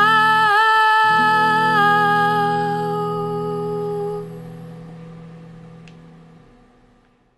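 The final note of a song for female voice and acoustic guitar: a sung note held over a last strummed guitar chord, with a slight waver in pitch about half a second in. Both ring on and fade out steadily to near silence at the end.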